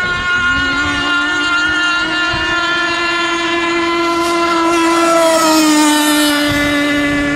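AB Marine Annihilator radio-controlled gas boat's 30cc two-stroke engine running at full speed on the water, a steady high-pitched whine. About five seconds in, the sound swells and its pitch drops as the boat passes close.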